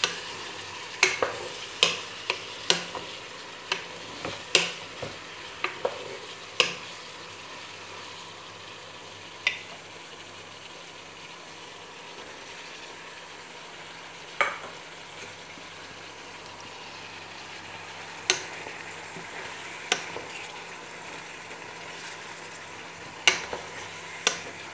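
Julienned carrots and ground meat frying with a steady soft sizzle in a pot, while a wooden spatula stirs and knocks against the pot. The knocks come quickly for the first several seconds, then only now and then.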